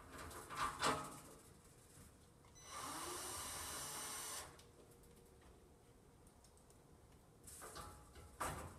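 Quiet handling and light clicks from driving stainless steel screws into the metal spice-rack frame, with a steady hiss of under two seconds in the middle.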